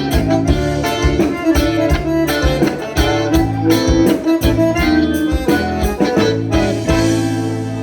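Live milonga played by a gaúcho band on accordion and guitar, instrumental with a steady plucked beat, closing on a long held chord near the end.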